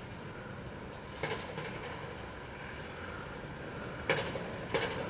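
A small motorbike engine running in the distance under steady outdoor noise, with a few short sharp bursts of noise over it.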